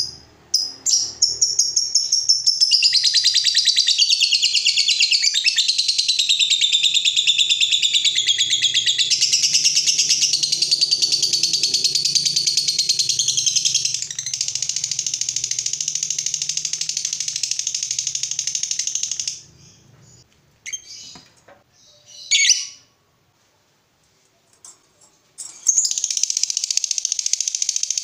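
Lovebird ngekek: a long, fast, unbroken chattering trill of high chirps lasting about eighteen seconds. It breaks into a few short calls and a brief silence, then the rapid chatter starts again near the end.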